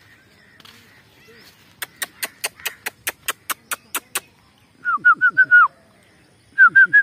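A run of about a dozen sharp, evenly spaced clicks, then a bird calling twice, each call a quick run of about five short, falling whistled notes.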